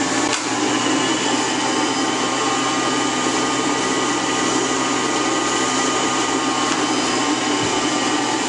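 Wheeled portable generator set running steadily, giving off a constant whining hum that does not change in speed.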